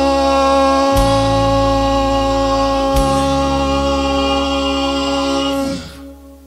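A man singing, holding the song's final note steady over a backing track of sustained low chords that change twice. Voice and backing stop together about six seconds in, leaving a fading ring.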